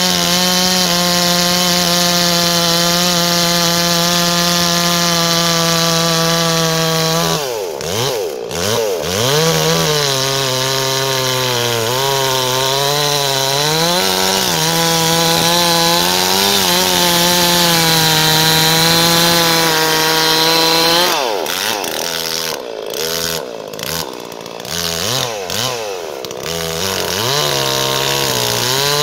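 Farmertec Holzfforma two-stroke chainsaw cutting through a large, dry hardwood log at full throttle. For the first several seconds the engine holds a steady high pitch. From about a quarter of the way in, its speed repeatedly sags and recovers as the chain loads up in the wood, with deeper dips near the end.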